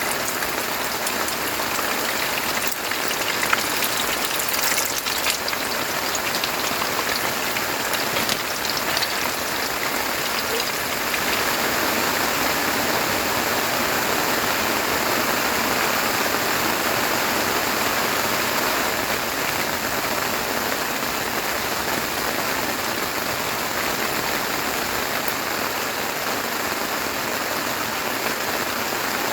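Heavy rain falling steadily and hitting a surface, with a few sharper drop taps a few seconds in.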